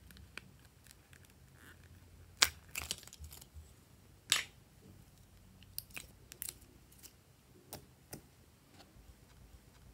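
Close handling of glossy slime. A bone-shaped plastic slime container snaps open with two sharp clicks a couple of seconds apart, then soft sticky crackles and pops come as the slime is pulled out and pressed into a bowl of slime.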